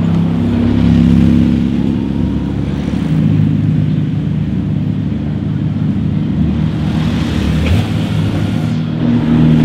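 Sports car engines, among them Porsche 911 flat-sixes, running at low revs as a line of cars rolls slowly past one after another. The engine note shifts in pitch and loudness as each car goes by.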